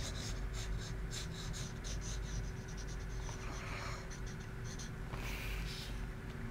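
Graphite pencil scratching across sketchbook paper in quick, short hatching strokes, then a brief softer rustle near the end.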